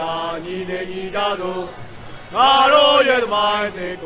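Men's voices chanting a protest chant in unison, in long held pitched notes. The loudest held note comes about two and a half seconds in.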